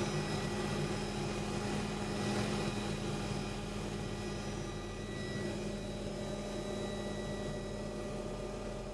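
Helicopter in flight, heard from inside the cabin: a steady engine and rotor noise with a few steady high tones running through it.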